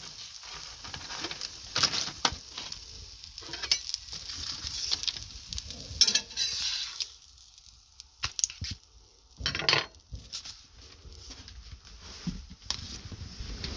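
Quail eggs frying in butter in a cast-iron skillet, sizzling and crackling with sharp pops, the butter overheated. About seven seconds in the sizzle dies away, followed by a few clicks and a short scrape.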